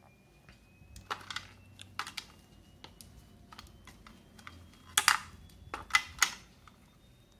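Small clicks, taps and rustles of earphone shells and a braided cable being handled and set into a hard clear plastic case, with a few sharper clatters about five and six seconds in.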